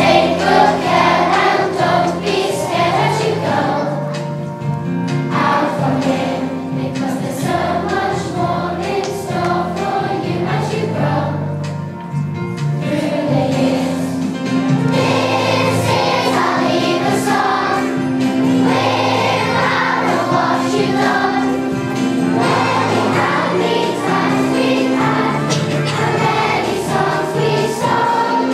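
A choir of schoolchildren singing a leavers' song together over a musical accompaniment with a steady beat.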